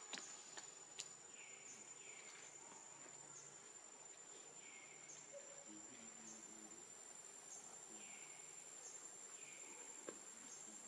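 Faint outdoor insect drone: a steady high-pitched whine, with short falling chirps every second or two and a couple of soft clicks near the start.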